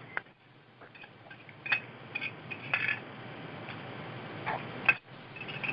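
Scattered light clicks and handling noises, about half a dozen, over a steady low hiss.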